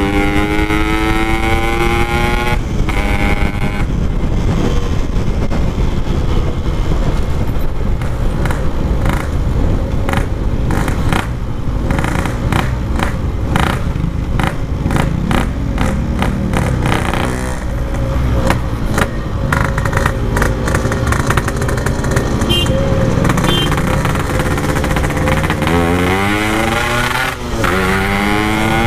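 Yamaha RX-King 135cc two-stroke single with a Packing Power expansion-chamber exhaust, ridden on the road. Its pitch rises as it accelerates at the start, holds steadier while cruising, then dips and rises again near the end as it pulls away once more.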